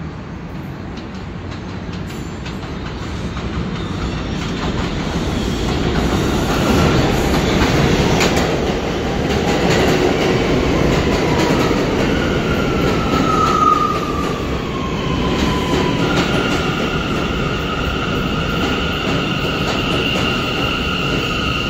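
An R179 subway train rumbles in, growing louder as it draws alongside. Partway through, a whine falls in pitch as it brakes, and then a steady high squeal holds while it comes to a stop.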